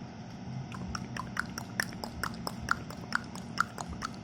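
Air fryer running with a steady low hum. Over it, from about a second in, comes a quick irregular series of sharp clicks, two or three a second.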